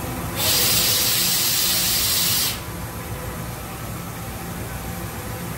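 A Doosan NHP5000 horizontal machining center gives a sharp hissing blast of compressed air, starting about half a second in and cutting off suddenly about two seconds later. The machine's steady low hum runs underneath.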